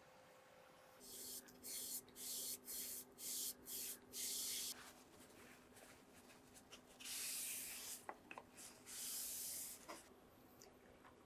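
Aerosol spray can being sprayed in a quick series of short hissing bursts, then two longer bursts of about a second each, with a few light clicks in between.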